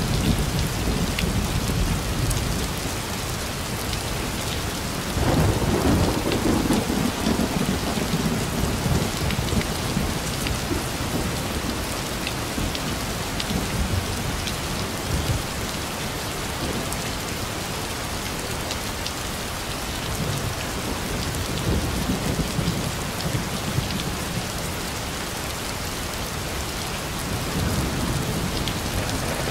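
Heavy rain falling steadily, with thunder: a sudden low rumble about five seconds in that rolls on and fades over several seconds, fainter rumbles later, and another building near the end.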